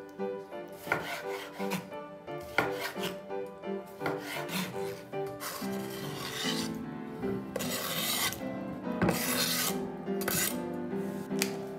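A knife chopping a tomato on a bamboo cutting board in a run of sharp strokes. From about halfway, two longer scrapes as the chopped pieces are slid off the wooden board into a glass bowl. Soft background music plays throughout.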